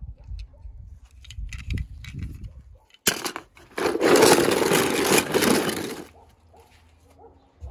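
Small metal toy cars clattering and scraping against one another in a plastic basin: a few scattered clicks, then a dense rattle lasting about three seconds from about three seconds in.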